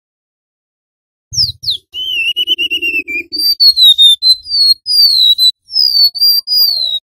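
Golden-bellied gerygone (remetuk laut) singing: a series of high, thin whistles, most gliding downward, with a quick trilled phrase about two seconds in. The song starts about a second and a half in, after silence.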